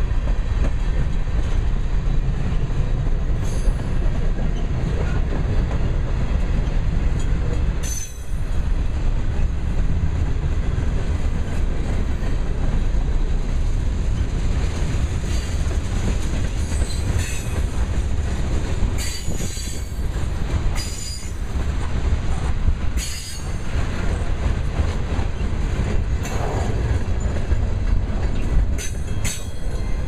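Freight cars of a manifest train (coal hoppers, tank cars and boxcars) rolling past: a steady rumble of steel wheels on rail with clickety-clack over the rail joints. Several brief high wheel squeals come in the middle and near the end.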